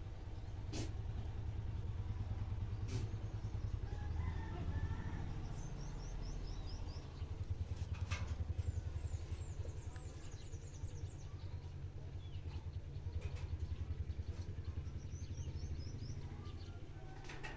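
Small birds chirping in quick runs of short high notes over a steady low rumble, with a few sharp clicks scattered through.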